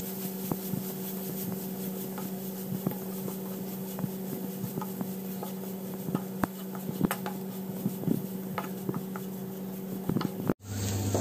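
Wooden spatula stirring sliced onions in a frying pan, with scattered light clicks and scrapes against the pan over a steady low hum. The sound cuts out for an instant near the end.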